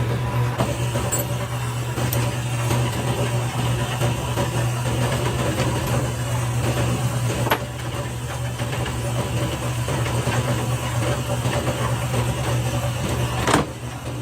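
Factory machinery running with a steady low hum, and sharp knocks about halfway through and again near the end.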